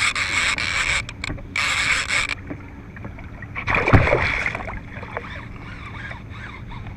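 A fishing reel's drag buzzes in two bursts as a hooked shark takes line. About four seconds in, a loud splash comes as the shark thrashes at the surface beside the kayak and throws spray.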